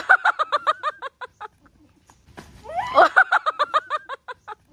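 Hearty high-pitched laughter in two bursts, each a quick run of ha-ha-ha pulses, about eight a second, that starts with a rising squeal.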